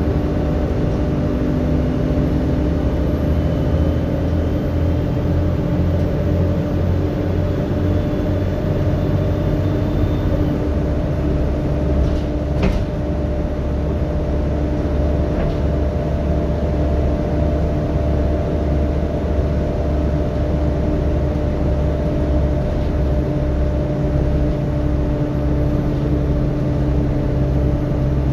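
Volvo B7TL double-decker bus heard from inside the passenger saloon while under way: the diesel engine runs with a steady whine from the engine cooling fan over it. The engine note shifts about ten seconds in, and there is a single sharp knock a couple of seconds later.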